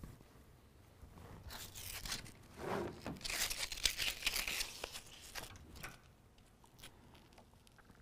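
Adhesive backing being peeled off a hook-fastener strip: a short dry tearing rasp about a second and a half in, then a longer, louder one from about three seconds in, followed by light handling clicks.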